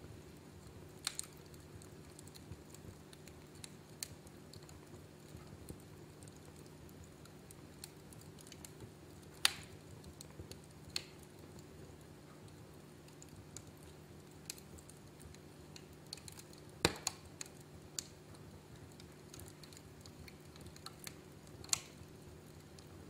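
Wood fire crackling in a fireplace: irregular sharp pops and snaps, the loudest about nine and seventeen seconds in, over a steady low hum.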